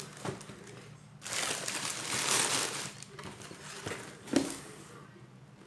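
Rustling and handling noises with a few short knocks, the loudest knock about four and a half seconds in.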